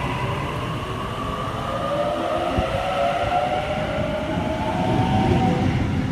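Sydney Trains Waratah (A set) electric double-deck train pulling away from the platform. Its traction motors whine in several tones that rise in pitch as it gathers speed, over the steady rumble of the wheels.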